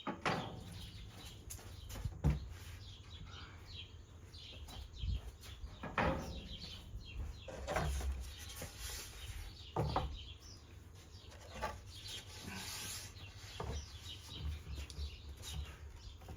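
Small birds chirping and singing in the background, with several scattered knocks and a steady low rumble.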